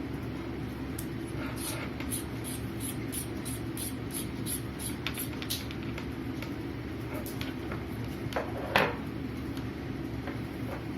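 Small clicks and taps from hands handling the lavalier microphone's small plastic parts: a quick run of them in the first half and one louder click near the end, over a steady low hum.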